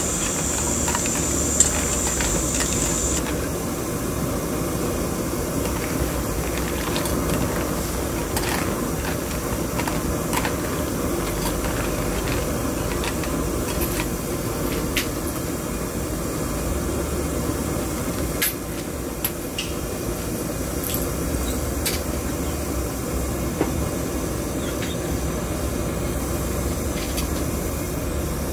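Steady rushing of a gas burner under a wok of water boiling with sea snails in it, with a few sharp clicks of a metal spatula against the shells and the pan.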